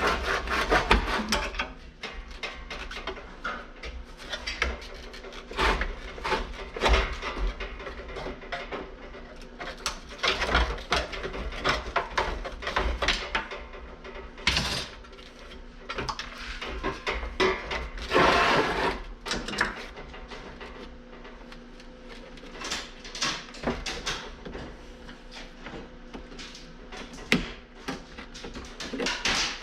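Irregular metal clanks, knocks and rattles from parts being handled and pried as an air conditioner is dismantled and its copper tubing is worked free. About two-thirds of the way through comes a longer scraping sound.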